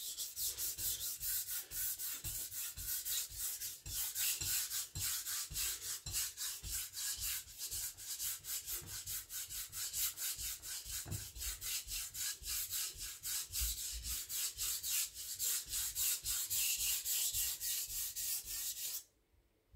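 Steel blade of a Victorinox Chinese cleaver stroked rapidly back and forth on a diamond sharpening plate, an even rasping scrape of about five strokes a second that stops abruptly near the end. The edge is being reprofiled, grinding the second side of a new bevel to raise a burr.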